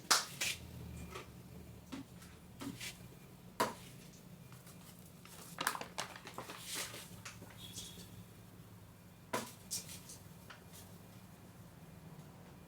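Kitchen utensils and bowls handled during baking: a few scattered light knocks and clicks, as of a spoon or cup against a mixing bowl, over a faint steady hum.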